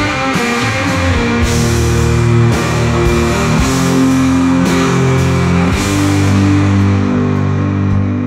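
Rock music with guitar: held chords with regular cymbal hits over them.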